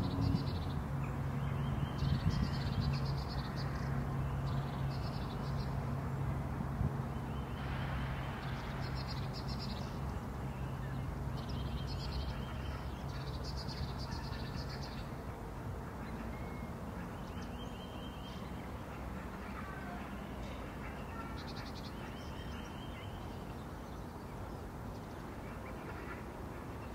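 Birds chirping in short calls every second or two, over a steady low hum that fades out about halfway through.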